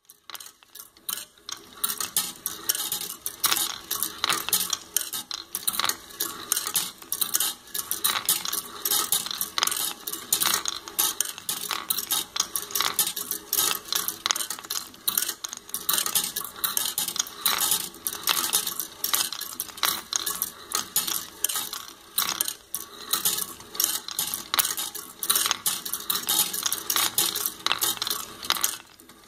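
Steel balls rolling and clattering along the brass-rod tracks of a wooden marble machine: a continuous, irregular run of metallic clicks and clinks, starting about a second in.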